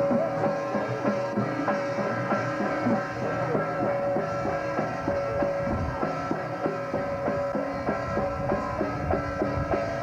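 Temple procession music: fast, steady drum and cymbal beating with held melody notes sounding over it.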